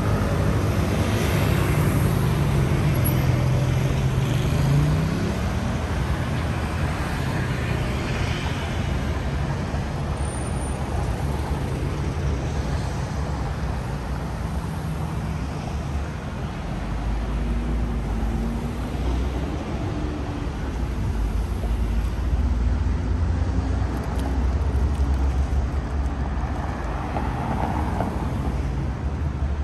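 City street traffic: vehicle engines running and passing, one rising in pitch a few seconds in as it speeds up, with a deep low rumble through the second half.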